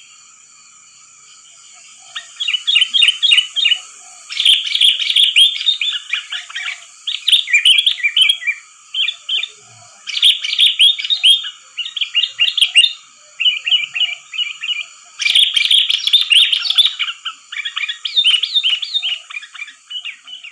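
Sooty-headed bulbuls (kutilang) singing and chattering, used as a lure call: quick bubbly phrases in bursts of one to two seconds with short gaps, starting about two seconds in, over a steady faint high hiss.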